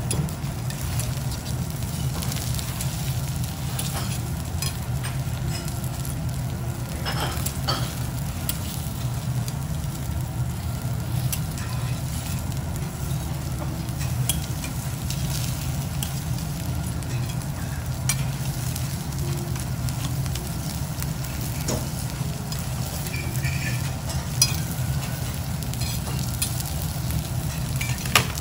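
Wagyu beef blocks sizzling steadily on a hot steel teppanyaki griddle, with scattered light clicks of the knife and carving fork against the plate as the meat is sliced. A steady low hum runs beneath.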